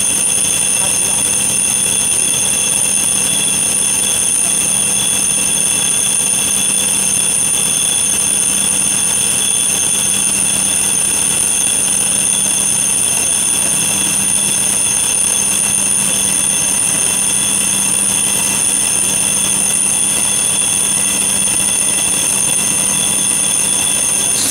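Milling machine face mill with solid CBN inserts finish-cutting a steel guide rail: a steady, high-pitched whine of several tones over a low hum.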